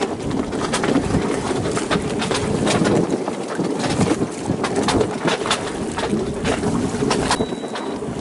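Water sloshing and splashing against a boat's hull and an inflatable dinghy at sea, with irregular sharp splashes and clicks over a steady wash, and wind on the microphone.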